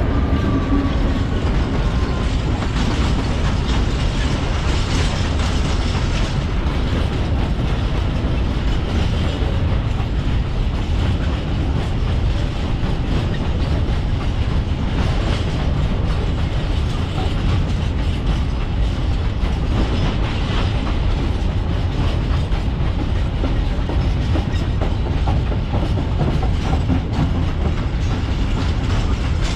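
Freight train rolling past: a steady rumble of wagons with the clickety-clack of wheels over the rail joints.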